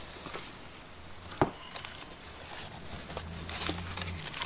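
Brown packing paper rustling and crinkling as hands unwrap a small glass, with one sharp tap about one and a half seconds in.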